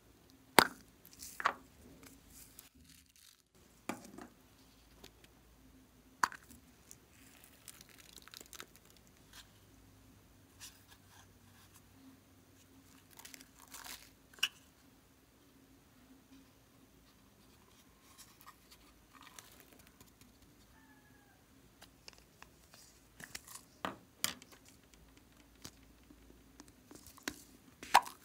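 Hard plastic capsule containers handled and opened by hand: a few sharp plastic clicks and taps with softer rustling between them as loose sprinkles and beads are tipped out.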